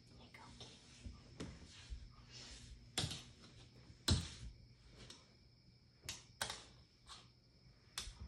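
A few scattered sharp clicks and light knocks, a second or two apart, the loudest about four seconds in.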